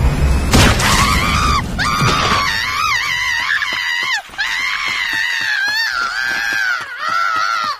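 A cartoon character screaming in a high, wavering voice, in several long cries broken by short breaths, just after a loud crash about half a second in.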